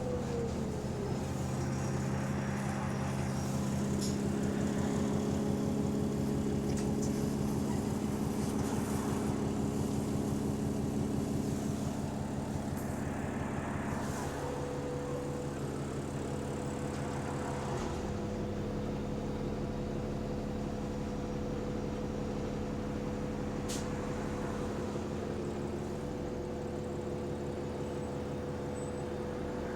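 A bus's diesel engine heard from on board, running steadily under way with a rapid low pulsing from a small exhaust leak. The engine note changes about 14 s in and again about 18 s in.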